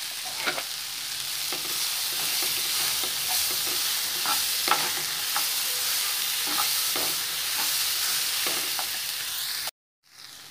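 Ivy gourd pieces sizzling in hot oil in a kadai as a spatula stirs them, with frequent scrapes and clicks of the spatula against the pan. The sound cuts off abruptly near the end, then returns quieter.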